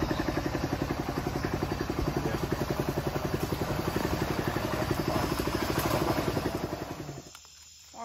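Small boat's outboard motor running steadily with a fast, even pulsing beat, dropping away about seven seconds in.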